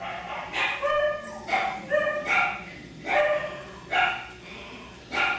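Cockapoo puppy yipping: a run of short, high-pitched barks, about eight of them, coming every half second to a second.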